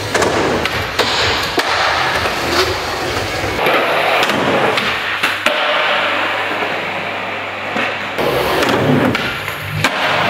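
Skateboard wheels rolling on a smooth park floor, with several sharp clacks of the board popping and hitting the ground as the skater sets up and launches a trick.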